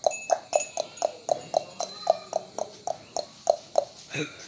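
A Gir cow being hand-milked: jets of milk squirting into a pail in a steady rhythm, about three to four strokes a second, each with a short ringing note. The strokes stop shortly before the end.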